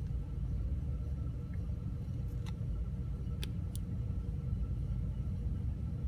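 Steady low rumble of a stationary car running, heard inside its cabin. Three faint clicks come about halfway through as the watch is handled.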